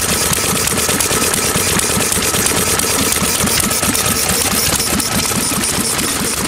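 1929 Briggs & Stratton Model FH single-cylinder engine running steadily with a fast, even beat of firing strokes, running smoothly.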